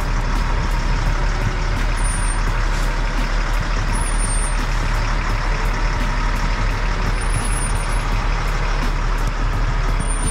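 Military cargo truck's diesel engine running steadily as the truck drives slowly on a flat rear tire with torn sidewalls.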